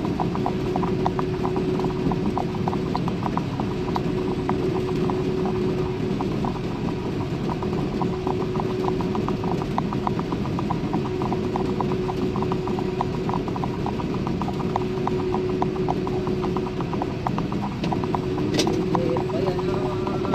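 Vehicle driving at speed: a steady low road and engine drone, with a steady hum and a fast, even run of light clicking rattles over it. One sharp click comes near the end.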